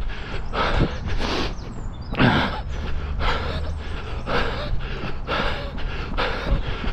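A runner breathing hard, in rhythmic puffs about one or two a second, over a steady low rumble.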